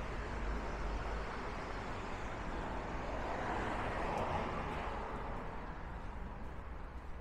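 Street traffic: a vehicle passing close by, its noise swelling to a peak about four seconds in and then fading, over a steady low rumble.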